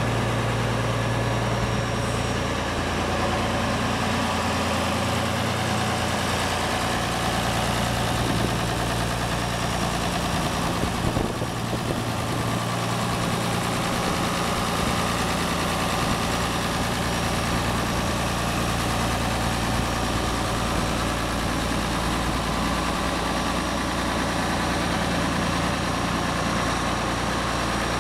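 Farmall 1206 Turbo's turbocharged six-cylinder diesel engine idling steadily.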